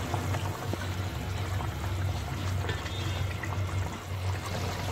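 Beef broth bubbling at a boil in an open steel pot, with a low steady hum beneath. Near the end, broth trickles back off a spatula that lifts out a piece of meat to check that it is tender.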